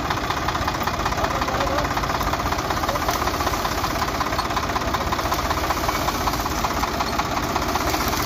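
Swaraj 744 FE tractor's three-cylinder diesel engine running steadily close up, with a rapid, even diesel clatter.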